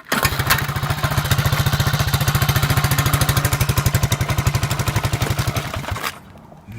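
Honda Z50 minibike's small single-cylinder four-stroke engine catching at once and running with a fast, even pulse, then dying suddenly about six seconds in. The bike has an exhaust leak that is being tracked down.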